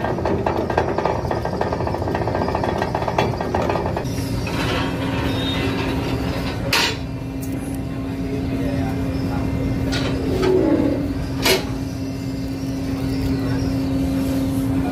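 Ferry machinery noise, a dense rattling for the first few seconds that gives way to a steady hum. Over the hum, a metal passenger stairway with railings is folded up by hand, giving sharp metallic clanks, three of them loud, in the second half.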